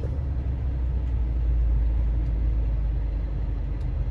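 Steady low rumble of a moving vehicle: road and engine noise.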